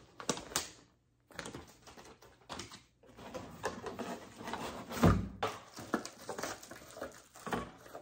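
Cardboard packaging being handled during unboxing: rustling, scraping and light knocks, with one loud thump about five seconds in.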